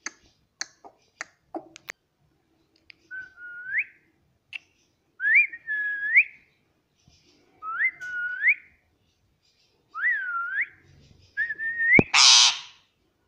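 Pet parrot whistling: a few short clicks, then a series of clear whistles, each ending in a quick upward sweep. Near the end comes one loud, harsh squawk.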